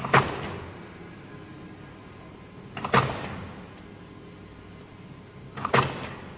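Kibbeh encrusting machine running, its forming head cycling with a sudden clack that trails off in about half a second, three times at roughly three-second intervals, over the machine's steady running noise.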